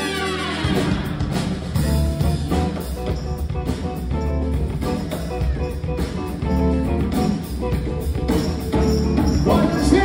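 Live band playing an instrumental passage: a held horn-section chord slides down and drops off right at the start, then drums, electric bass and electric guitars carry a steady groove with no vocals.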